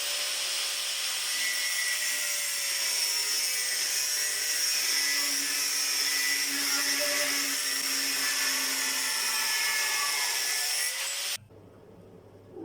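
Angle grinder running under load on steel: a steady, loud high-pitched grinding hiss over a steady motor whine. It cuts off suddenly about eleven seconds in.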